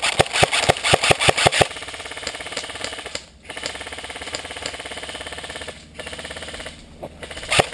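Airsoft guns firing: a quick string of shots at about six a second, then long full-auto bursts with a steady rapid buzz, broken by two short pauses.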